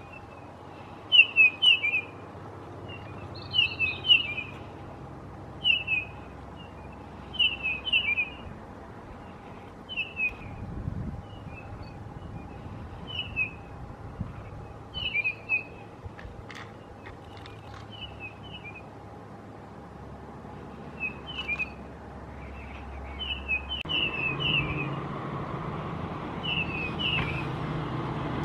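Grey-headed bullfinch calling: short high chirps in quick pairs and triplets, repeated every second or two. A low hum grows in the last few seconds.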